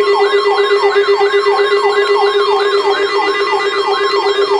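Electronic siren in a fast yelp, its pitch sweeping up and down about three times a second over a steady tone; it starts abruptly.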